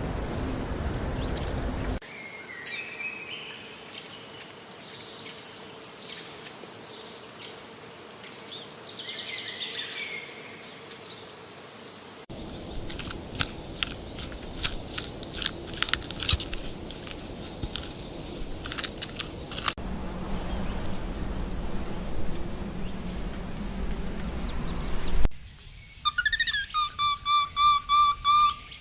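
High chirping calls, then a run of sharp crunching clicks as a white-headed marmoset chews, then a series of short, repeated whistled calls from a black lion tamarin.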